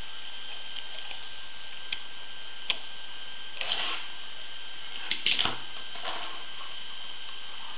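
Tech Deck fingerboard being flicked and rolled on a board: a few sharp clicks as its tail and wheels strike the surface, a short rolling scrape about three and a half seconds in, and a quick clatter of clicks just past five seconds, over a steady hiss with a faint high whine.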